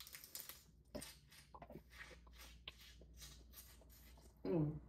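Mouth sounds of eating a boiled crawfish: a run of soft wet smacks and clicks as the meat is bitten and pulled from the shell. There is a brief hum of the voice about four and a half seconds in.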